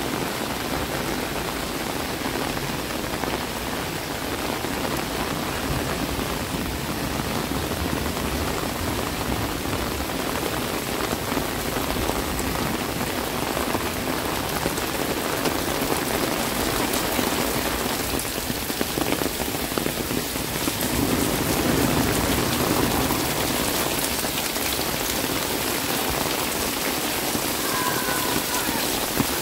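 Heavy rain falling steadily, briefly louder a little past two-thirds through.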